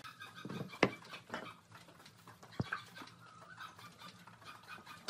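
Cut-out wooden boards handled and set down on a workbench: a few sharp wooden knocks, the loudest about a second in, with faint short animal calls in the background.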